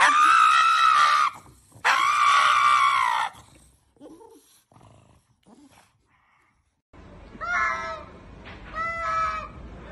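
A pug screaming during a nail trim: two long, loud, high-pitched screams, the first about a second long and the second about a second and a half, each dropping in pitch at the end. About seven seconds in, two cats yowl at each other in a standoff, twice.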